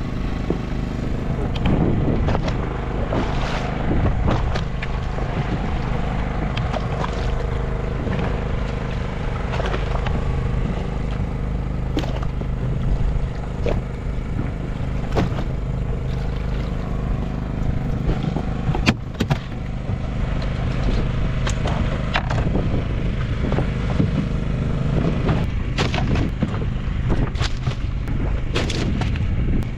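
A motor running steadily with a low hum, broken by repeated knocks and splashes as a hooked fish is hauled in over the side of the boat.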